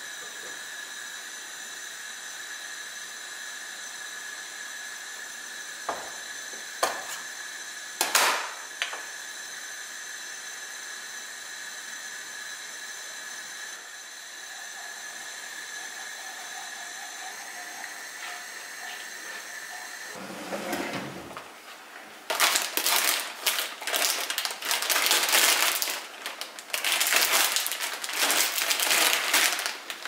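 Steady hiss from a pan heating on a gas hob, with a few light knocks about six to eight seconds in. From about twenty seconds in, loud irregular rustling and clatter.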